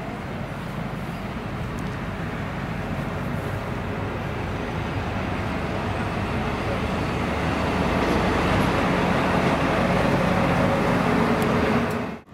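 DB class 294 diesel-hydraulic shunting locomotive running light, its diesel engine getting steadily louder as it approaches and passes close by. The sound cuts off abruptly near the end.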